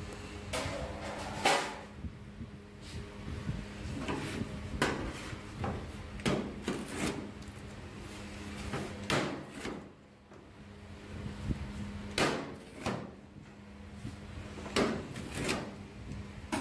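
Rolling pizza cutter slicing through a baked thin-crust pizza onto a metal pizza tray: a series of short, rasping strokes at irregular intervals, several of them loud.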